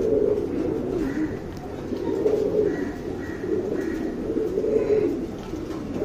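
Domestic pigeons cooing: a steady, wavering low coo that carries on without a break.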